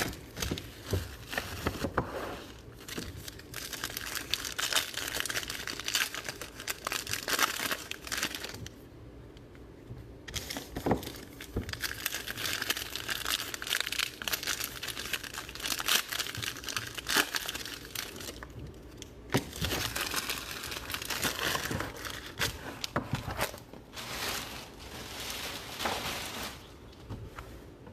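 Plastic wrapping being torn and crinkled as a new box of football trading cards and its packs are opened by hand, in long stretches of crackling broken by a couple of short pauses.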